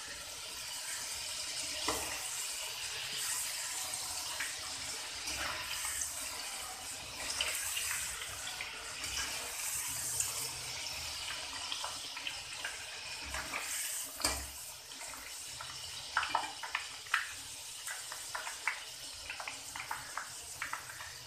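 Thin potato slices deep-frying in hot oil in a wok: a steady sizzling hiss as the moisture in the freshly added raw slices boils off, with scattered sharp crackles and clicks that come thicker over the last few seconds.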